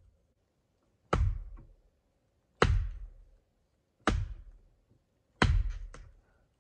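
Four heavy knocks of dead wood being struck, about a second and a half apart, each dying away quickly. This is dead timber being broken up for shelter poles.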